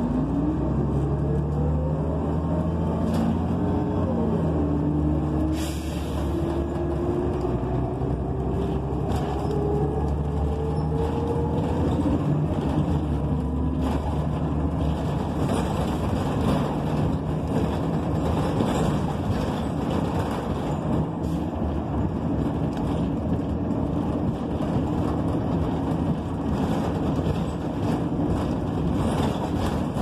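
Interior sound of a 2008 NABI 45C transit bus's Cummins Westport ISL G natural-gas inline-six and Allison automatic transmission pulling away. A whine climbs in pitch, drops about four seconds in as the transmission shifts up, and climbs again until about twelve seconds in. After that the bus runs steadily, with engine drone and road noise.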